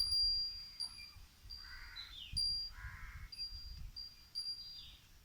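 Crows cawing twice, each call about half a second long, against a repeated thin high-pitched chirp.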